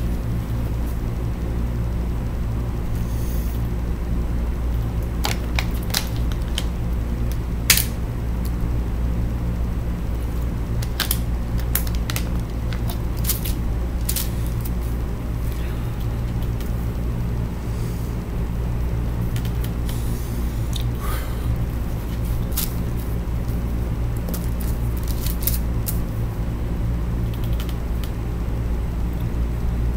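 A steady low hum with several fixed low tones, broken by scattered clicks and light taps; the sharpest click comes about eight seconds in.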